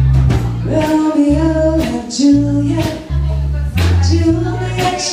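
Live rock band playing: steady bass guitar notes, drums and electric guitar, with a woman singing a melody that starts about a second in.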